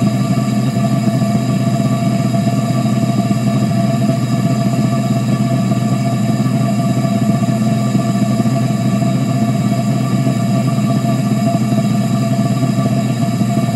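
Homemade propane-air combustion chamber running steadily with a blue flame in its barrel: a constant loud rushing sound of burning gas and forced air with several steady hum tones through it, unchanging throughout.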